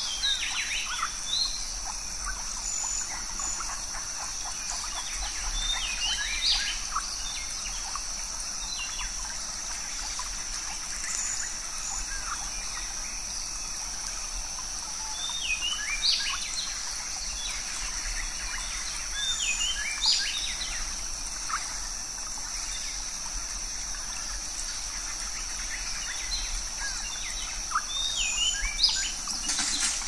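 Forest ambience: a steady high-pitched insect drone, with short runs of bird chirps every few seconds, over a light trickle of water.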